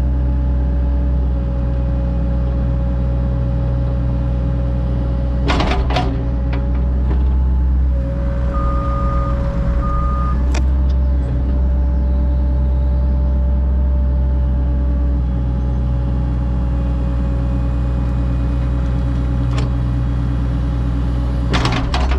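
Excavator's diesel engine running steadily under load with a hydraulic whine while the tilt bucket shapes the bank, with a few metallic clanks from the bucket and two short electronic beeps about nine and ten seconds in.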